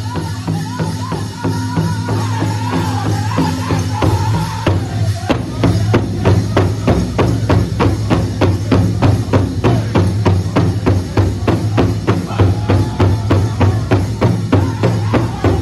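Powwow drum group singing a grass dance song, several men striking one big powwow drum together in a steady beat while singing in unison. A high, wavering lead voice carries the first few seconds; about five seconds in it drops away and the drumbeat comes through stronger and faster under lower sustained voices.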